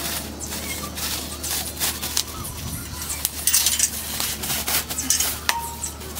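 Plastic bubble wrap crinkling and crackling as it is pulled off a new chrome motorcycle exhaust, with scattered sharp clinks as the pipe is handled.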